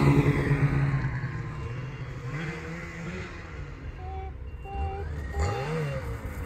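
Snowmobile engines: one loud close by at first, fading over the first two seconds, then another snowmobile climbing the hill toward the camera, its engine revving up and down.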